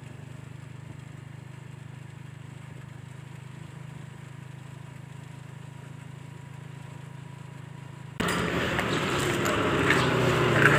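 Steady low engine hum of a vehicle, heard from inside while riding. About eight seconds in it changes abruptly to louder outdoor street noise.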